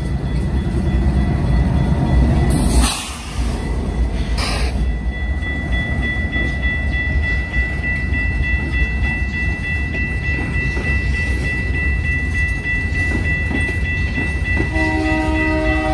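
Canadian Pacific freight train rolling past, a steady low rumble of cars on the rails. A steady high-pitched tone runs over it from about five seconds in, and a locomotive's multi-chime horn starts sounding about a second before the end.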